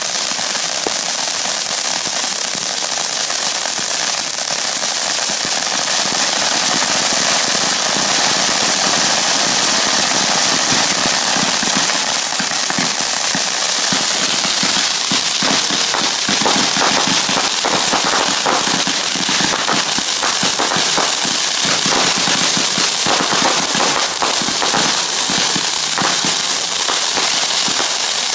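Fireworks crackling without a break: a dense, continuous stream of rapid small pops and hiss that grows sharper and more distinctly popping about halfway through.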